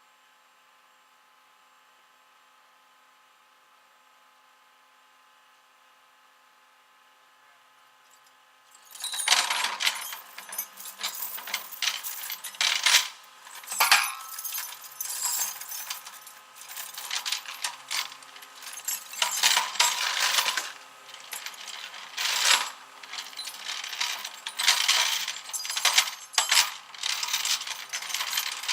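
Near silence with a faint steady hum, then about nine seconds in a busy metallic clinking and jangling starts and goes on in waves: small metal pieces or hand tools rattling against each other.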